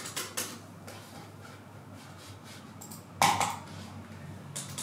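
A few sharp clicks and knocks of hard objects being handled, the loudest a clatter about three seconds in, over a low steady hum.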